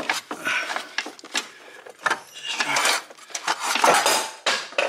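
Irregular metallic clanking and scraping as an A/C compressor is wrestled out between a C5 Corvette's engine and frame.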